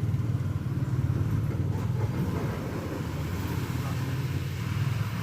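Bus engine running with road and tyre noise: a steady low rumble.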